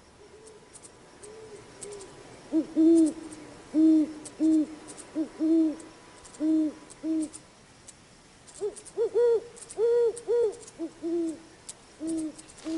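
Great horned owl hooting: low, short hoots in repeated runs, starting about a second and a half in. A higher-pitched run of hoots overlaps with them about nine to ten seconds in.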